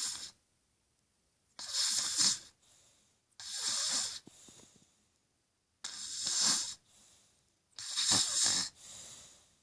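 Snoring: four loud rattling breaths about two seconds apart, each followed by a quieter, softer breath.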